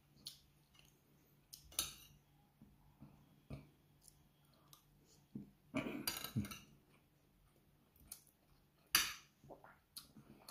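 Eating sounds: a metal spoon scraping and clinking on a plate, with chewing between. Short scattered sounds, the loudest about six seconds in and again about nine seconds in.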